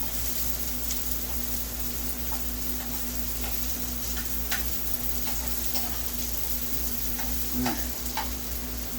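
Steady hiss over a low electrical hum, with scattered small clicks and taps as parts are handled on the bench.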